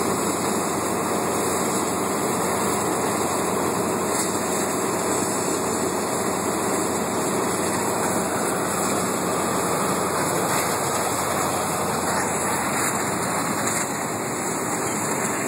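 Steady, loud rushing roar and hiss from a burning propane tank, the gas burning as it jets out.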